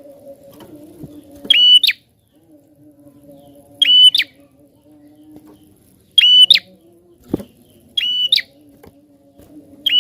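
A prenjak (prinia) calling loudly and insistently: short, sharp, high whistled notes repeated about every two and a half seconds, four times, over a faint low steady hum.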